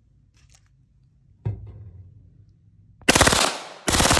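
Heckler & Koch MP5 submachine gun firing on full auto: a short burst of rapid shots about three seconds in, and a second burst starting near the end. Before that, a single knock.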